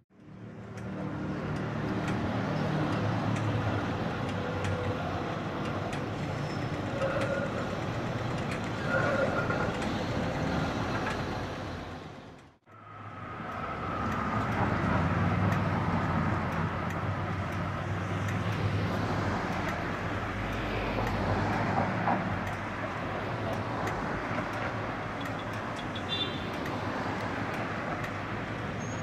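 City street traffic with trams running: a steady low hum of vehicles with faint higher tones now and then. The sound drops out briefly about halfway through.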